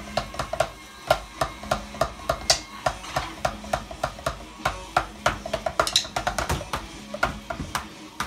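An electronic drum kit played with sticks: a quick, uneven run of hits on its pads, with a faster flurry of strikes about halfway through.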